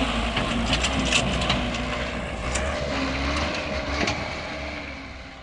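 Dump truck's diesel engine running under load while stuck in soft ground, with scattered sharp cracks and crunches of gravel and debris; it fades out near the end.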